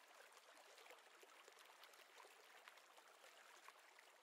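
Near silence: a faint hiss with light scattered crackle.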